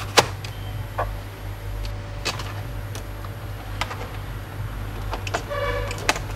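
Small screwdriver driving a screw into the plastic base panel of an HP 15 laptop: a few scattered clicks and taps of the tool and screw. A steady low hum runs underneath, and a brief pitched squeak comes about a second before the end.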